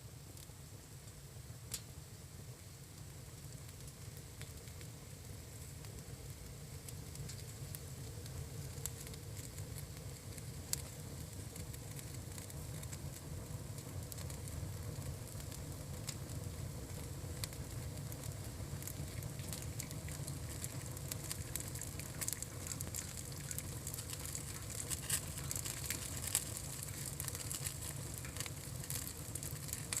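Campfire being kindled, crackling with sharp pops over a low steady rumble; the pops grow more frequent and louder toward the end as the fire catches.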